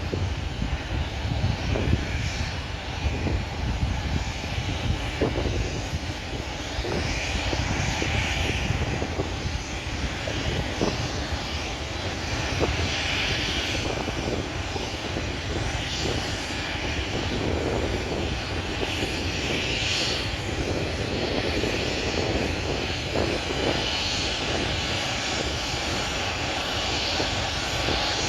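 Boeing 737-300F's CFM56-3 turbofan engines running steadily at taxi power, a continuous rumble with a rushing hiss that swells and fades every few seconds.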